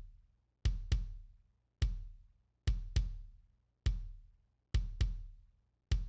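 Soloed kick drum track playing back, a replaced kick sample: a beat of single kick hits and quick pairs, about ten in all. Each hit is a deep boom with a sharp beater click.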